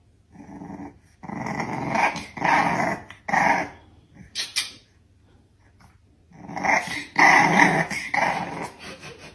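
A dog growling in a series of short bursts: a run of them in the first few seconds, a pause, then another run about two-thirds of the way through.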